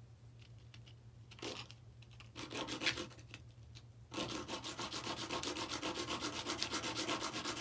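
Fast, steady back-and-forth rubbing or scraping, about ten strokes a second, starting about four seconds in and louder than the few scattered scuffs before it.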